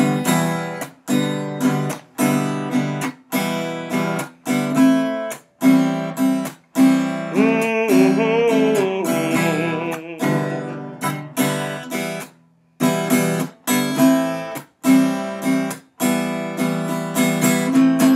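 Acoustic guitar strummed in steady chords, each strike ringing and decaying into the next, with a short break about twelve seconds in.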